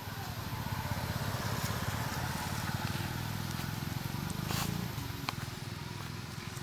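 A small engine running steadily in the background, a low pulsing hum, with a couple of faint clicks a little after the middle.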